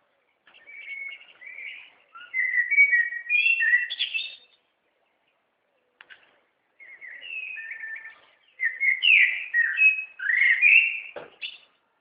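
A songbird singing two long, warbling phrases of varied whistled and chirping notes. The first phrase ends about four seconds in and the second starts about seven seconds in, with a single click between them.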